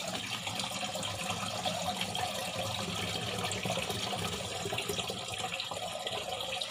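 Water pouring steadily into the plastic water tank of a Dawa AC-3000 air cooler, splashing as the tank fills.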